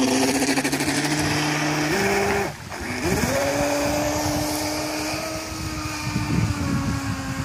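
Traxxas Spartan RC speed boat's brushless motor, on 6S LiPo power, whining hard under throttle as the boat takes off and runs across the water, with a hiss of water spray. The pitch steps up, the throttle drops off briefly about two and a half seconds in, then the whine climbs back up and holds steady.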